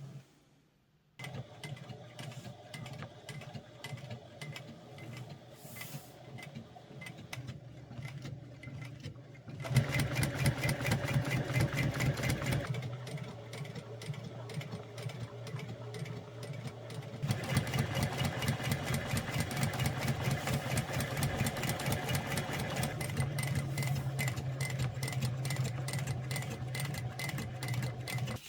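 Weaver 303 industrial sewing machine running, its motor humming with a rapid repeating beat of needle strokes. It starts about a second in at a quieter level, then sews in two louder, faster runs, one from about ten seconds in for a few seconds and one from about seventeen seconds in, stopping suddenly near the end.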